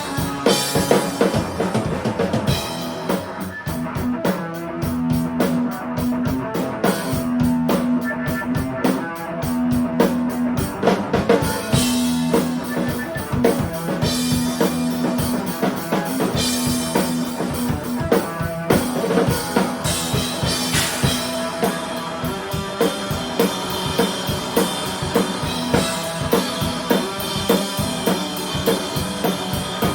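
A band jamming: a drum kit plays a steady beat with bass drum, snare and cymbals, under repeated held notes from an amplified instrument.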